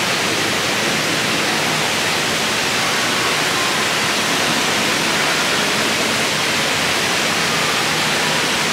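Steady rush of falling water.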